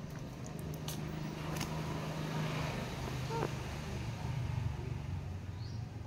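A steady low mechanical hum, with a few faint clicks and one short rising squawk from an Alexandrine parakeet about three and a half seconds in.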